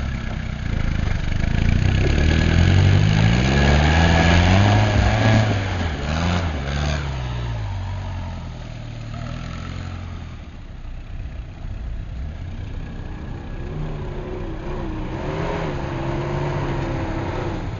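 A 4x4 off-road vehicle's engine revving up over the first few seconds, then dropping back to low revs, with small wavering rises in pitch near the end.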